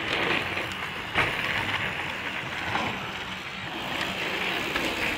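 Mountain bike tyres rolling over hard-packed dirt and gravel, a steady crunching hiss, with one sharp knock from the bike a little over a second in.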